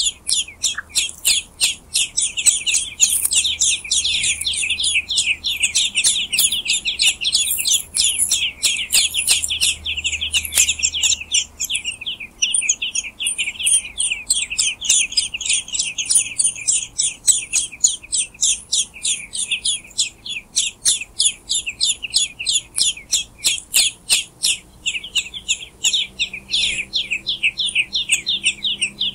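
Eurasian blackbird nestlings begging for food: a dense, rapid stream of high, thin cheeping calls, fullest in the first dozen seconds and thinner after.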